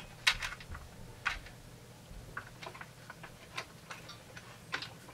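Light, irregular metallic clicks and clinks from a chainsaw chain and small metal saw parts being handled during disassembly, with a few louder knocks among them.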